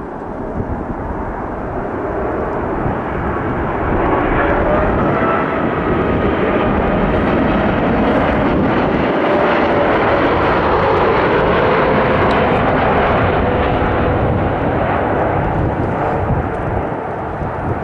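Lufthansa Boeing 747-8's four GEnx turbofan engines on final approach with the landing gear down, passing low overhead. The jet noise swells over the first few seconds, holds loud with a whine that slides slightly lower in pitch, and eases near the end.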